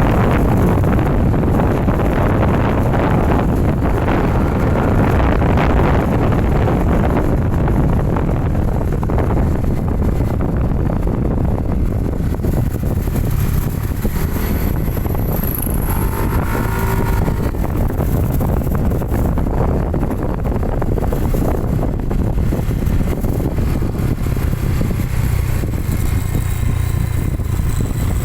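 Motorcycle riding on the road, its exhaust running through a JVT V3 adjustable pipe set to the minimum, quietest setting: a steady, not very noisy exhaust note with no backfire. Wind buffets the phone's microphone.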